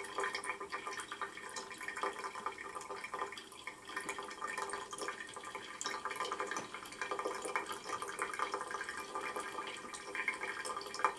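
Water running from a tap in a thin stream, trickling and splashing steadily.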